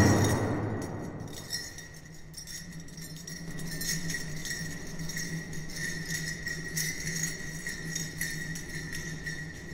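The last strokes of a powwow hand drum die away, then faint, scattered jingling of sleigh bells worn on a traditional dancer's legs as he moves, over a steady low electrical hum.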